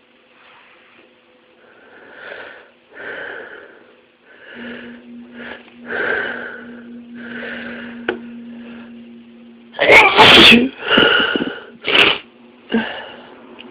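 A person's sneezing fit: several seconds of breathy in-breaths building up, then a loud sneeze about ten seconds in, followed quickly by three more sneezes, each a little softer.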